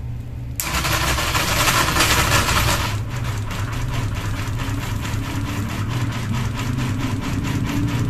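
Ceiling fan running with only two blades fitted, starting up: a steady motor hum, and a loud hiss for about two seconds just after it starts. Then comes a fast, even knocking from the fan wobbling on its mount, which is out of balance with its blades removed.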